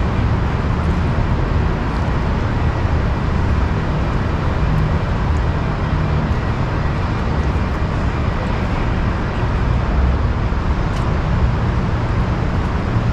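Steady urban traffic noise, an even low rumble of passing vehicles.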